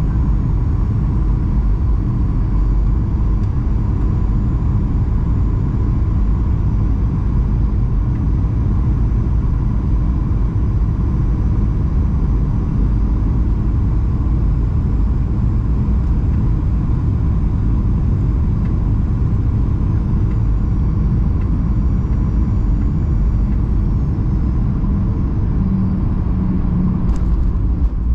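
Boeing 737-800 cabin noise on the descent: a steady, loud rumble of engines and airflow, with faint high whines that slowly drop in pitch late on. A few short knocks come near the end.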